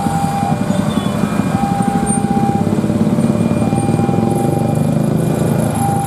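Railway level-crossing warning signal sounding one steady tone about a second long, repeating every two seconds, over the running engines of waiting motorcycles and traffic.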